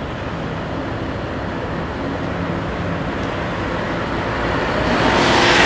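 Scania R560 truck's V8 diesel engine running at low revs as the truck manoeuvres slowly past. It gets steadily louder, and a hiss swells in near the end.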